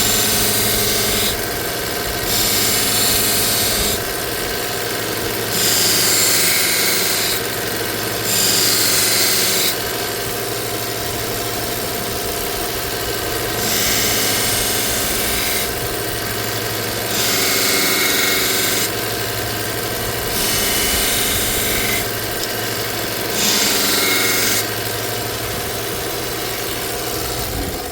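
A 1x30 belt sander fitted with a yellow felt honing belt, its motor humming steadily. A knife edge is drawn along the running felt again and again, each pass a hiss of a second or two, stripping the burr off the edge.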